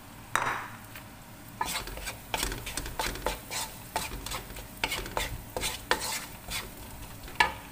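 Wooden spatula scraping and knocking against a wok in repeated strokes as egg and diced carrots are stir-fried, with food sizzling in the hot oil underneath.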